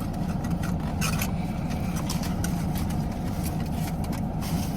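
Steady low rumble of a car cabin on the move, with a few brief rustles, most likely plastic toy packaging being handled, about a second in and again near the end.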